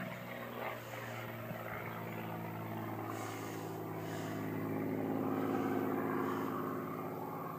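Display aircraft's engine droning overhead during an aerobatic routine, a steady drone that grows louder about five seconds in and then begins to fade.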